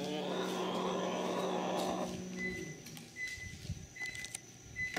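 A long, harsh animal call lasting about two seconds, with a low steady pitch. Then short, high beeps repeat roughly every three-quarters of a second.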